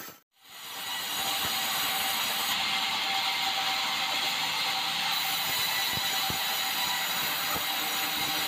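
Sawmill band saw running and cutting through red meranti wood, a steady machine noise that begins after a brief gap. A few light knocks sound in the second half.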